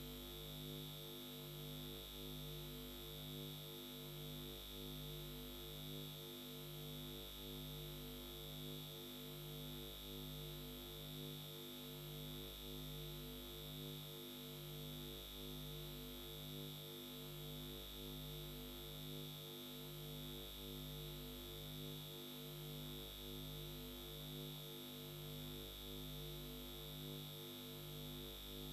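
Low, steady synthesizer drone made of several held tones that pulse slowly and evenly, a quiet suspense music bed.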